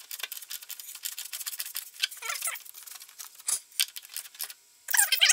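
Ratchet wrench clicking in quick runs as it tightens the bolt on a battery cable terminal, with a short pause near the end before a faster run of clicks.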